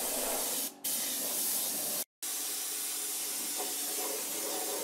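Gravity-feed compressed-air paint spray gun hissing steadily while spraying primer. It breaks off briefly twice, about 0.7 s in and again about 2 s in.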